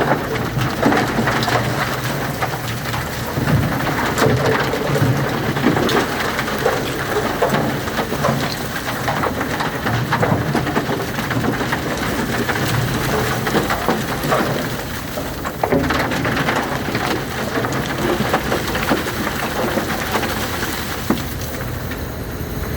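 Concrete mixer running, its turning drum giving a steady low hum under a dense, continuous clatter of material tumbling and rattling inside.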